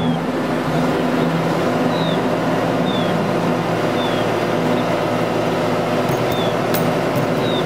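Steady hum of city traffic with a low drone under it, and a short, high, falling chirp repeating about once a second.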